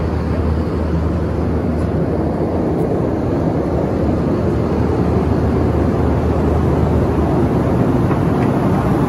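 Steady cabin noise of a jet airliner in flight: an even rushing roar of engines and airflow with a low hum underneath.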